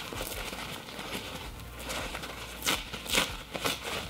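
Paper towel rustling as it is handled, then torn in several short rips in the last second and a half.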